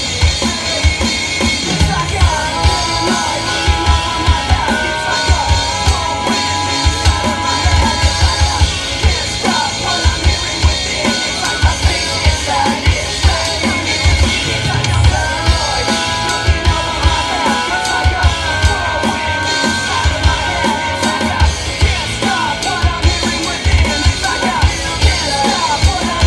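Drum kit played live along to a heavy rock song with shouted and sung vocals coming over PA speakers. The kick drum hits are the loudest part, in a steady driving beat.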